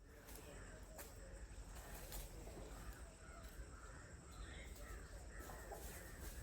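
Faint bird calls, short and wavering, scattered over steady outdoor background noise, with a few sharp clicks.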